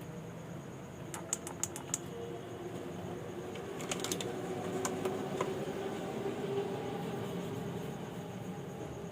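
Small plastic push button on a Pulsar 150 digital meter being pressed repeatedly to test it: a run of about five quick clicks a second in, then another cluster of clicks around four seconds in and a couple of single clicks after.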